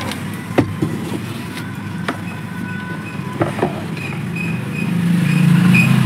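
A low, steady motor drone that grows louder about five seconds in, with a few sharp clicks and light knocks as a CRT TV circuit board is handled and turned over.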